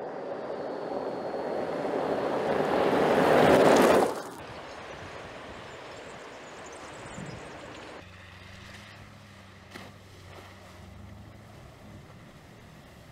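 2019 Mercedes-Benz G-Class driving on an off-road gravel track: engine and tyre noise build to a loud pass and cut off suddenly about four seconds in, followed by a quieter, steady engine running at low speed.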